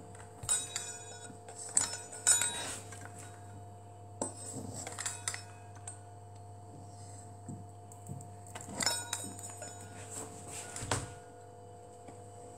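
Metal pizza-cutter wheel with a plastic handle rolling and pressing through soft dough onto a wooden board. Its blade clicks and clinks in three spells of a second or two each. The wheel wobbles in its handle, which the baker takes as a sign that the cutter needs replacing.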